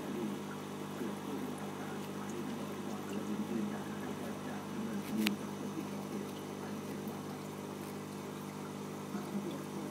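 Aquarium pump running: a steady low hum with soft water gurgling over it, and one sharp click a little past halfway.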